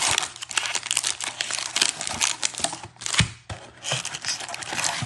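Foil trading-card pack wrappers crinkling and rustling as a stack of Topps Series 1 baseball packs is handled and pulled out of a cardboard box, with one sharper knock about three seconds in.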